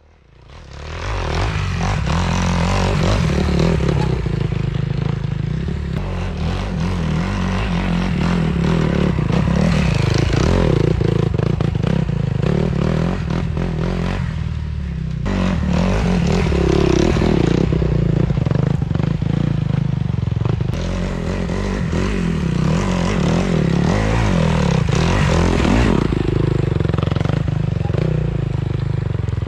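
Enduro motorcycle engines running on a rough forest trail, engine speed rising and falling unevenly as the bikes pick their way over the terrain, with knocks and rattles from the bikes. Briefly quieter about halfway through.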